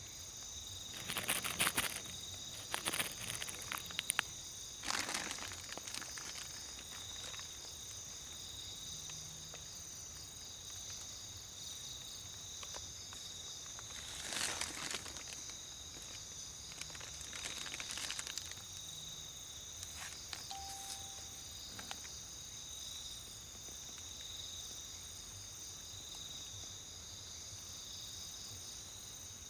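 Night insects such as crickets trilling steadily in high, even tones. Several short bursts of rustling and crunching come over them in the first few seconds and again around the middle.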